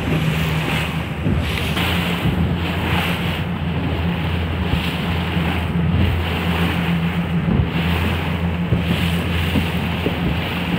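Boat under way at sea: a steady low engine drone under wind buffeting the microphone and water rushing past the hull.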